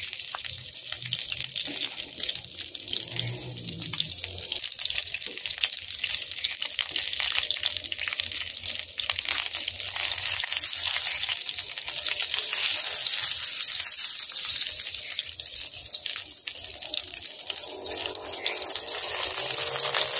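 Chicken pieces frying in butter in a wok: a steady sizzle with fine crackling.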